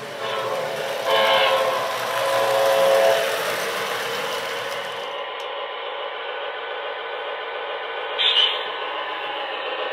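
Lionel CNW Dash 8-40C O-gauge diesel model sounding its electronic horn in two blasts during the first three seconds, over the steady rumble of the train running on the track, which carries on by itself after that. A brief sharp sound about eight seconds in.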